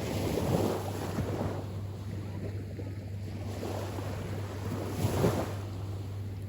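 Small waves washing onto the shore, with two louder surges about half a second and five seconds in, and wind buffeting the microphone.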